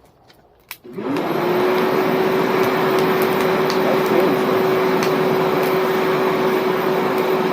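An old vacuum cleaner motor, used as the air blower for a homemade coal forge, switches on about a second in. Its whine rises quickly to one steady pitch and then runs on with a loud rush of air.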